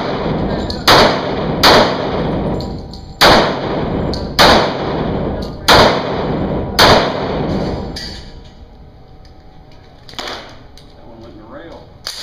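Semi-automatic pistol fired six times, roughly a second apart, each shot ringing on in an indoor range. The firing stops about seven seconds in.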